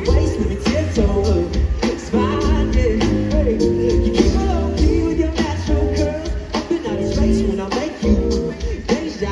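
Live band playing a song, a singer's voice over a steady drum beat, heard from the arena stands.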